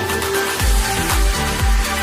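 Electronic dance music with a steady bass beat, about two beats a second, under sustained synth notes.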